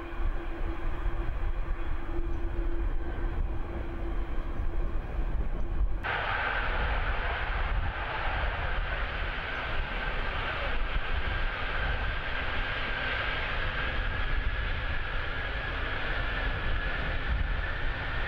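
The six turbofan engines of the Antonov An-225 Mriya running at high power on its takeoff run: a steady jet rumble and whine. About six seconds in the sound changes abruptly to a louder high whine that slowly rises in pitch as the aircraft accelerates toward lift-off.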